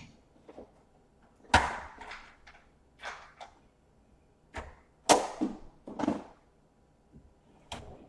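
Knocks and clatters of someone rummaging through storage for a part, with two louder bangs about a second and a half and five seconds in.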